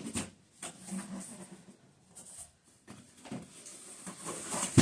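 Handling noises of a box and its packaging being opened: scattered rustles and clicks, the loudest near the end.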